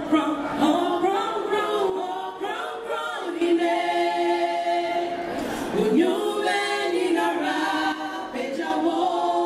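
Group of women singing together a cappella, without instruments, holding long sustained notes.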